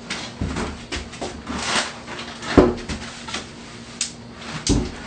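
A shower base being swung into place on the subfloor: scraping and sliding, with several dull knocks as it bumps into position, the loudest about halfway through.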